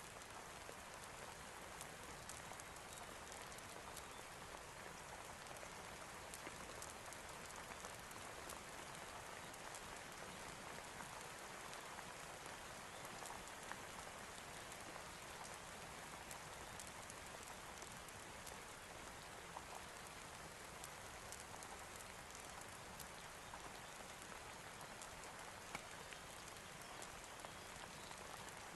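Steady rain falling, with light scattered ticks of drops.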